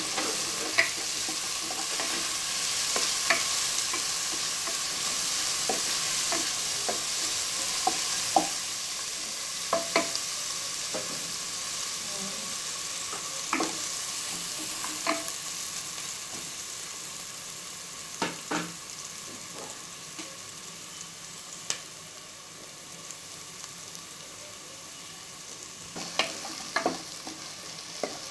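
Sliced onions sizzling in hot oil in an aluminium pressure cooker, stirred with a wooden spatula that knocks and scrapes against the pot now and then. The sizzle grows quieter through the second half.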